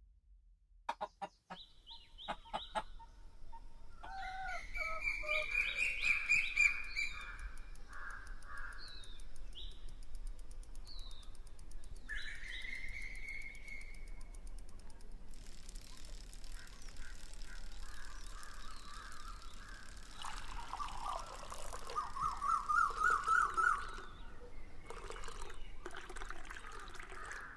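Village bird sounds: a rooster crows twice, among other birds calling and chirping, with a run of quick repeated calls near the end. A few sharp clicks come in the first seconds.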